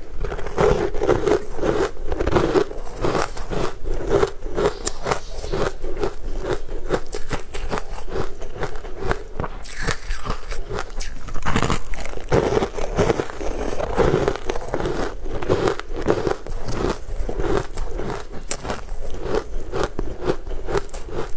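Close-miked eating of crumbly sponge cake: biting and chewing, with a dense, continuous run of small crisp crackles and crunches.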